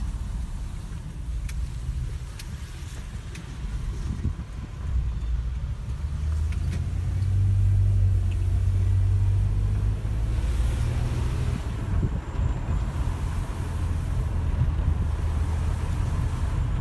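Low rumble of a car's engine and tyres heard from inside the cabin as it drives slowly, with a steady hum that grows louder about halfway through.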